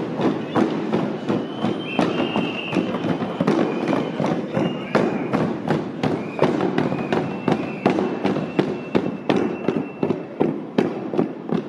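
Hand drums beaten in a steady marching rhythm, about three beats a second, over the murmur and footsteps of a walking crowd. A few high held tones come and go in the middle.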